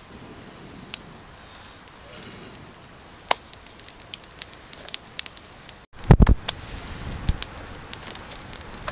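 Small wood fire crackling, with scattered sharp pops and snaps. A few dull low thumps come about six seconds in.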